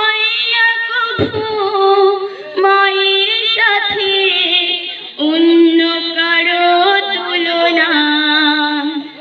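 A woman's solo voice singing a Bengali gojol (Islamic devotional song) into a microphone, in long held, wavering notes with brief breaths between phrases.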